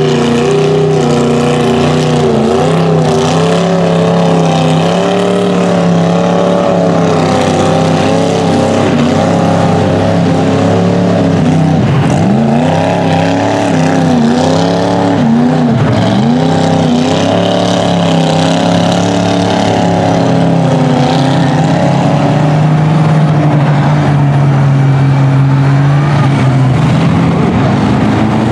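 Lifted mud trucks' engines revving hard while churning through a mud pit, the pitch rising and falling again and again, with a deep dip and climb in the middle.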